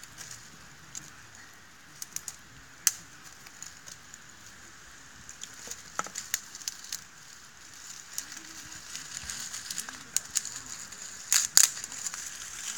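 Wood campfire crackling: scattered sharp pops and snaps over a soft hiss of burning, with a quick run of louder pops near the end.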